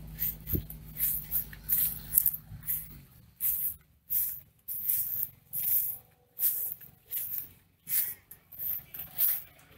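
Footsteps crunching on grass and gravel, about one step every 0.7 seconds. A steady low hum runs under them for the first three seconds, then stops.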